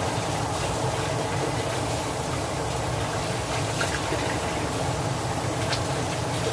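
Tap water running steadily into a kitchen sink while raw chicken is rinsed under the stream, with a few faint knocks.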